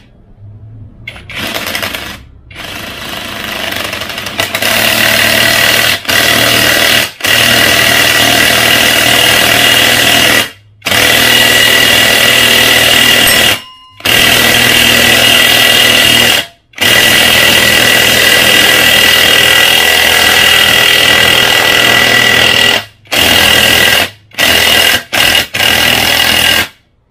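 Nanwei cordless impact wrench, used as an impact driver with a 14 mm socket, hammering a 3-inch hex-head lag screw into hard timber. The rapid impacting builds up over the first few seconds, then runs in long loud stretches with short pauses. It ends in a few short bursts as the screw seats.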